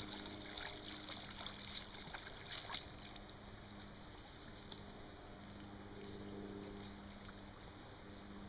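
Faint river water sounds with a few small splashes and knocks in the first three seconds, over a steady low hum that fades in and out.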